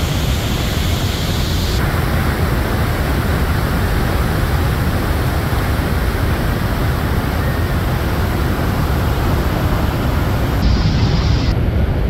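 Steady, deep roar of Niagara's American Falls, its water pouring over the brink and crashing onto the rocks below.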